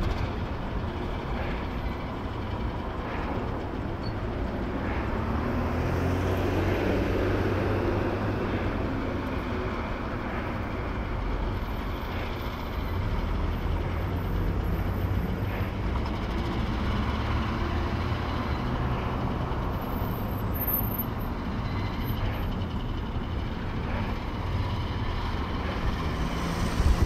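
Vehicle engine running at low speed, a steady low rumble whose pitch rises and falls slightly.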